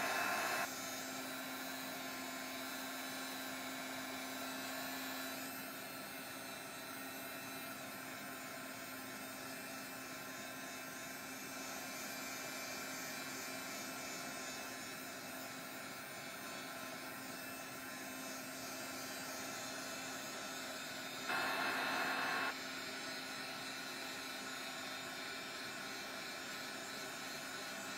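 Electric heat gun running steadily: a continuous blowing rush with a low motor hum, drying stencilled primer paste on the cards. It gets briefly louder for about a second at the start and again about 21 seconds in.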